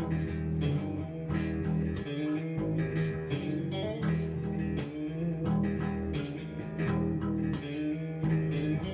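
Electric bass guitar played in an improvised riff: a steady run of plucked low notes with sharp string attacks.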